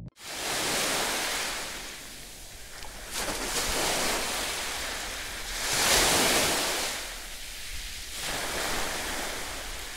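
Sea surf washing onto a beach, rising and falling in surges every couple of seconds, the loudest about six seconds in, with wind rumble on the microphone.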